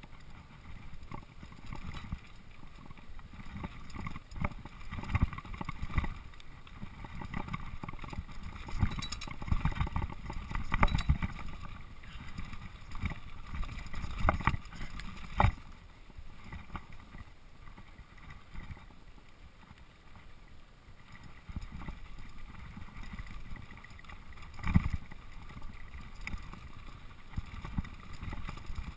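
Mountain bike riding fast down a dirt singletrack: a steady rumble and rattle of tyres and bike over the rough trail, with sharper knocks as the wheels hit bumps and a small log crossing, the loudest about halfway through.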